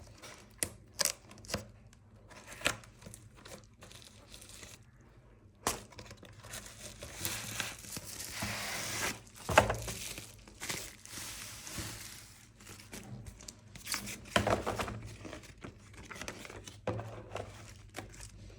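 Packaging being opened by hand: crinkling and tearing of wrapping with scattered taps and clicks, and a long stretch of rustling in the middle.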